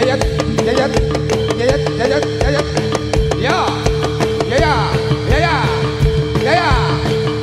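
Javanese jathilan gamelan accompaniment, loud: quick, regular drum strokes under a held tone, with a melody that swoops up and falls back about once a second in the second half.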